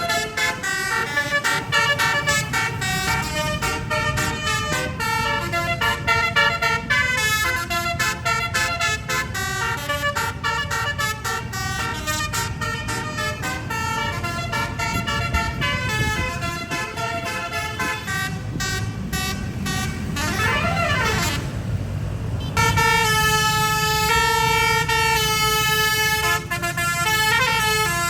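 Bus telolet horn, a 12-note set of 24 air-horn trumpets, playing a fast tune of short stepped notes over a low vehicle rumble. About twenty seconds in, a short up-and-down slide sounds, then the horn holds longer chords near the end.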